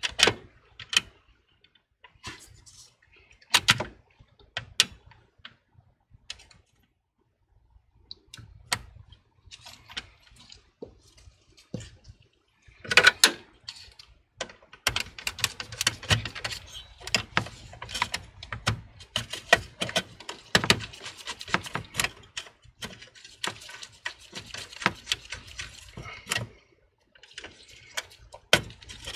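Irregular clicks, taps and knocks of gloved hands fitting a liquid cooler's pump head and its mounting bracket over the CPU, with one louder knock about halfway and a dense run of small clicks and rattles after it.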